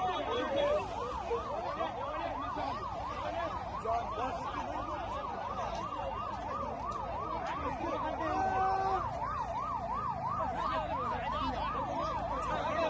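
Ambulance siren sounding a fast up-and-down yelp, about three sweeps a second, over the shouting of a crowd gathered around it.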